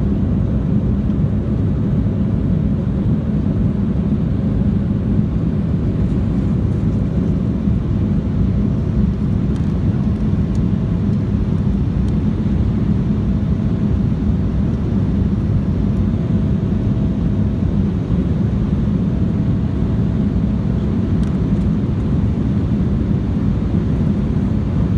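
Steady, deep cabin noise inside an Embraer 175 airliner: its twin GE CF34-8E turbofans and the rushing airflow, even throughout, with a faint steady tone above it.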